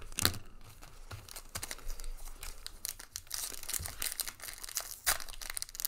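Foil wrapper of a trading card pack crinkling and tearing as it is opened by hand, with light clicks and taps of handling. The crinkling is densest a little past the middle.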